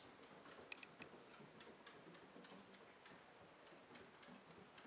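Cat exercise wheel turning under a walking Bengal cat, giving faint, irregular clicks about two a second.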